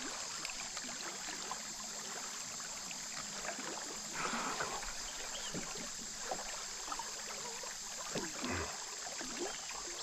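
River current running steadily past the boat, with a few brief knocks and rubbing noises about four seconds in and again near the end.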